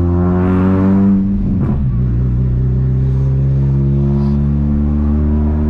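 VW Gol G2's 1.0 8-valve four-cylinder engine through an HKS sport muffler, revving up under acceleration. About a second and a half in, the note breaks and drops in pitch as it shifts up, then it runs on steadily at lower revs.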